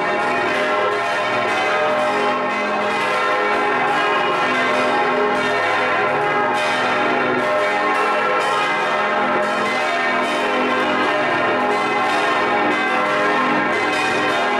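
Several large bronze church bells swinging and ringing together in a full peal, recorded close up inside the bell tower. Clapper strikes from different bells overlap at an uneven pace, and their tones hang over one another in a dense, steady wash.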